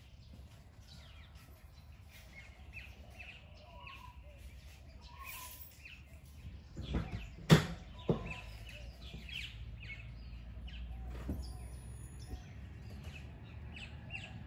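Birds chirping and calling in short notes. About halfway through comes a loud knock, followed a moment later by a softer one.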